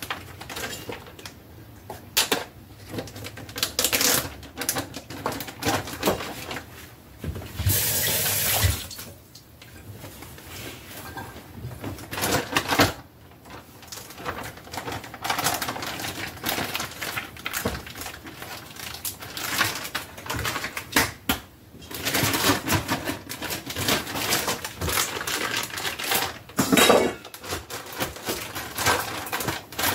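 Kitchen handling noises: irregular clatter, clicks and knocks of dishes and containers being moved. There is a short rushing hiss about eight seconds in.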